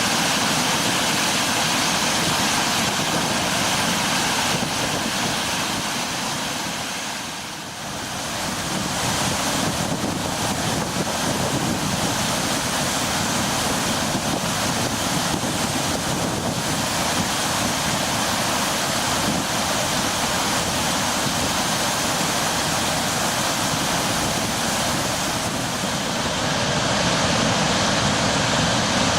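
Floodwater being released through a dam's spillway gates at heavy post-typhoon flow: a steady, loud rush of falling water. It dips briefly about seven seconds in.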